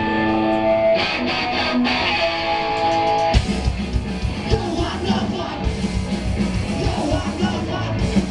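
Live rock band. An electric guitar rings out chords alone, then about three and a half seconds in the drums and full band come in loud.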